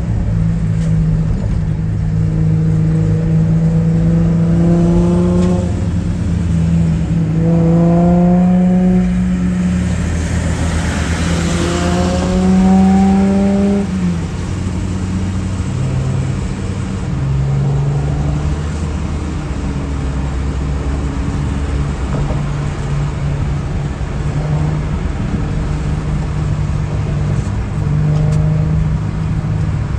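Car engines and road noise: a steady low engine drone, with engine notes rising in pitch several times as cars accelerate through the gears, and a passing rush of noise about ten to thirteen seconds in.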